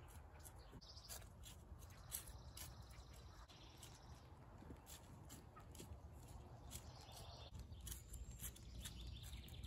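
Faint outdoor ambience: scattered light ticks and taps over a low steady rumble, with a faint high call or two near the end.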